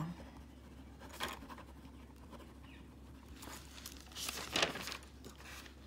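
Pen scratching across ruled notebook paper in a few short strokes as words are written, with a louder paper rustle near the end.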